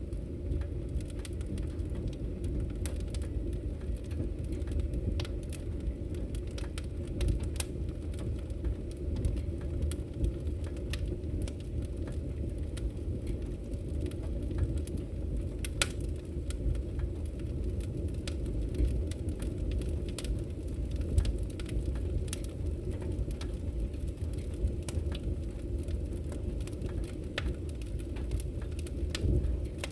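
Campfire burning: a steady low rush of flame with scattered sharp crackles and pops from the burning wood.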